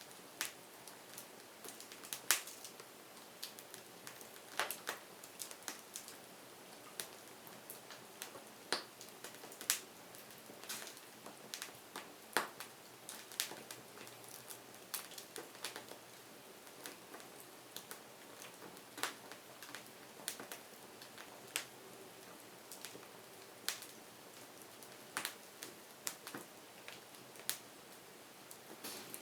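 Wood fire crackling: irregular sharp pops and snaps, one every second or so, over a faint steady hiss of burning.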